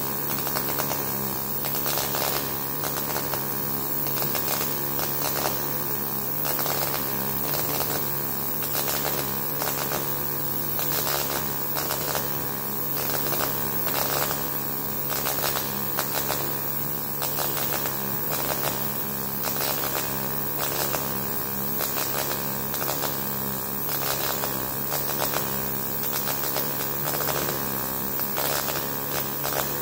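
MAG welding arc crackling steadily without a break while a vertical-up (uphill) seam is laid, over a steady low electrical hum.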